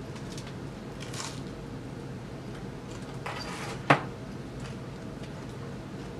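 Rustling and handling noises over a steady low hum, with one sharp knock just before four seconds in as an arm sweeps down past the microphone.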